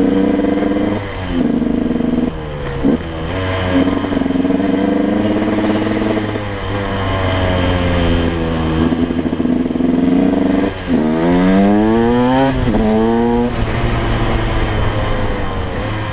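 KTM 125 EXC's two-stroke single-cylinder engine pulling the bike along the road, its pitch climbing and dropping several times with sharp breaks at the gear changes. About eleven seconds in it revs up steeply, and the sound fades near the end.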